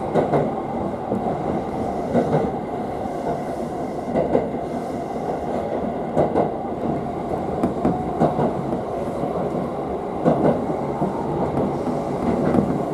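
Electric commuter train running, heard inside the passenger car: a steady running noise with a clack from the wheels about every two seconds.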